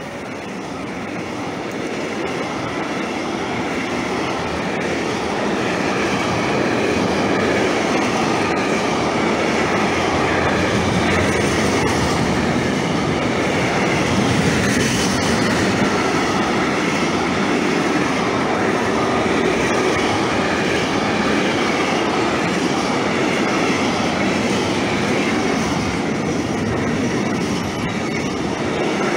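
Container freight train hauled by an electric locomotive passing close at speed: a steady rumble and rattle of wheels and wagons on the rails that builds over the first few seconds as the locomotive arrives, then holds. A faint, wavering high ringing from the wheels runs over it.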